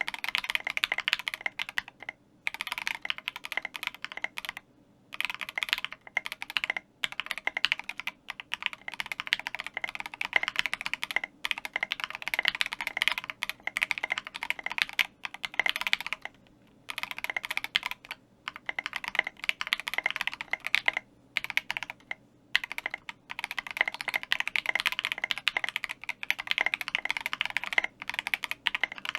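Typing on a Cannonkeys Savage65 mechanical keyboard with lubed Durock Alpaca linear switches, an FR4 plate and SA keycaps. The keystrokes come in fast, dense runs, broken now and then by short pauses.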